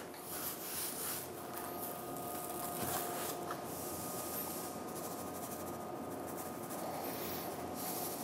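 Faint rustling and rubbing as a coarse salt-and-pepper rub is shaken from a plastic tub and worked by a gloved hand into the surface of a raw beef brisket, over a faint steady hum.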